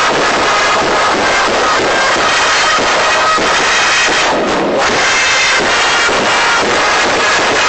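Cheering-squad trumpets playing a baseball player cheer song together, loud and continuous, with a short break in the melody about four and a half seconds in.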